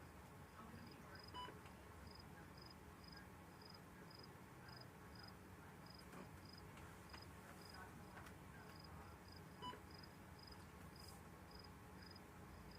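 Faint cricket chirping: short, high chirps repeating about twice a second over a low steady background hum, with a couple of faint ticks.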